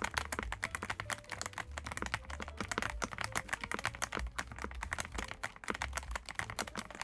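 Fast, continuous typing on a YUNZII gasket-mount mechanical keyboard with PBT double-shot keycaps: a dense run of quick, irregular key clicks.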